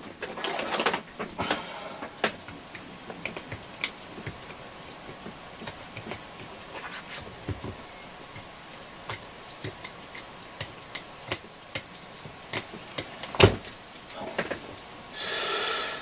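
Scattered light clicks and taps of small tools and parts being handled on a workbench, with one louder knock late on and a brief breathy hiss just before the end.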